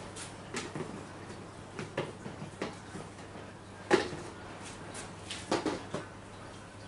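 Scattered knocks and clicks of glass terrarium doors being opened and shut and things shifted inside the enclosures, the sharpest knock about four seconds in, over a faint low steady hum.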